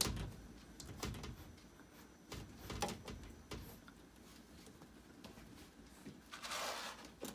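A cat climbing and hanging on sheer fabric curtains by its claws: scattered soft knocks and rustling of the curtain and its fittings, with a longer rustle near the end.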